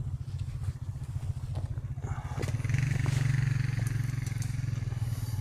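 Four-wheeler (ATV) engine running at low speed, getting louder a little under three seconds in as the throttle opens.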